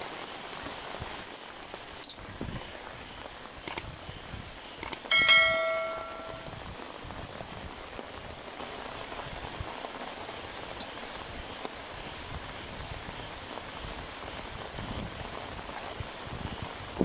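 Steady rain hissing on wet ground and water, with a few short knocks. About five seconds in comes one sharp metallic ring that dies away over about a second.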